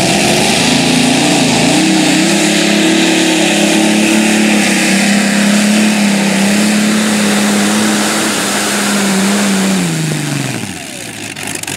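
Modified pulling tractor's supercharged engines running flat out under load, a loud steady high engine note while pulling the sled. About ten seconds in the pitch falls and the engines wind down as the tractor comes to a stop.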